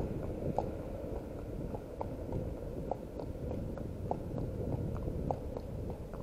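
Horse's hooves clip-clopping on a tarmac road at a walk, about two or three hoofbeats a second in an uneven rhythm, over a steady low rumble.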